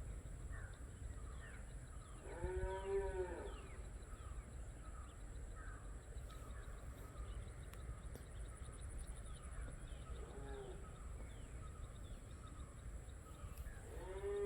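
An animal's drawn-out call, about a second long and rising then falling slightly in pitch, comes once a couple of seconds in and again faintly near the end. Between the calls there is a steady high whine and many short falling chirps.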